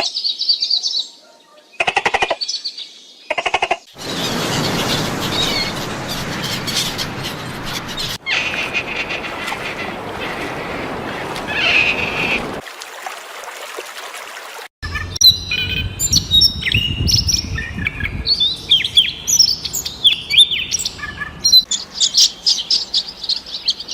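Birds chirping, many quick high calls, heard in a string of short clips that cut abruptly from one to the next, with a stretch of rushing noise in the middle.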